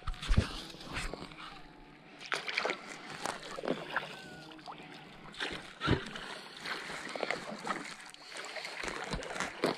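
Kayak paddle blades dipping and pulling through calm water from an inflatable kayak, with irregular splashes and drips about every second or two. A sharper knock sounds just after the start.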